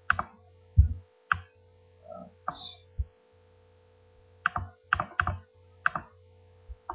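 Irregular clicks and taps from a computer mouse and keyboard, a dozen or so short sharp ones, some in quick pairs about four to five seconds in, over a steady low electrical hum.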